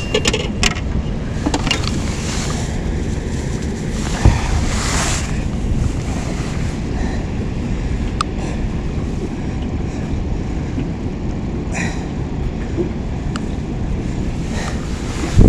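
Steady wind rumble on the microphone with water washing against a small boat, broken by a few short knocks and clicks, the loudest about four seconds in.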